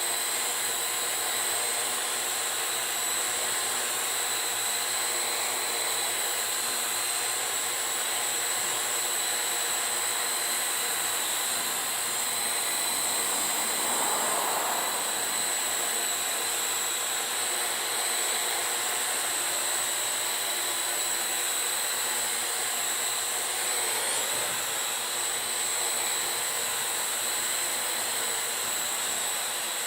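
Parrot AR.Drone 2.0 quadcopter in flight: its four electric motors and propellers give a steady high whine over a rushing hiss, with a brief swell about halfway through.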